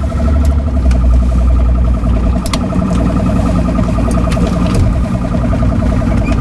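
A boat motor runs at low speed under a low rumble, with a steady, fast-pulsing high tone over it and a few sharp clicks.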